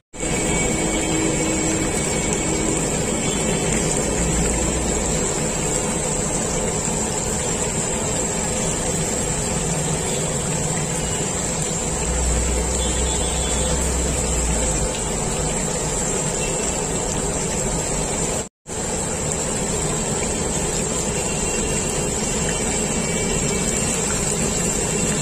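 Steady sizzling hiss of battered pieces deep-frying in oil in a large iron kadai over a gas burner, with street noise underneath. The sound cuts out for an instant about three-quarters of the way through.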